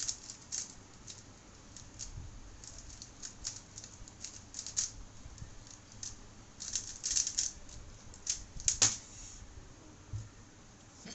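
A 3x3 speedcube being turned fast by hand: quick plastic clicks and clacks of the layers in irregular flurries, ending with a sharp knock about nine seconds in as the solve finishes.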